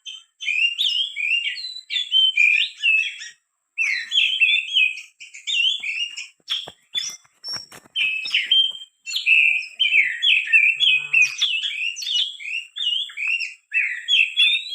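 Oriental magpie-robin song, fast varied chirping and whistled phrases repeating with brief pauses, used as a lure call. A steady thin high whine starts and stops with the song. A cluster of sharp clicks comes about halfway through.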